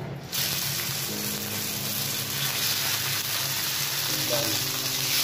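Tanigue (Spanish mackerel) steaks sizzling in hot cooking oil in a frying pan: the sizzle starts suddenly as the fish goes into the oil and then runs on steadily.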